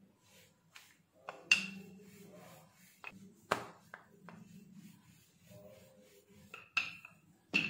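Wooden rolling pin rolling bread dough on a silicone baking mat: a soft rubbing sound broken by several sharp clacks from the pin, some with a brief ring.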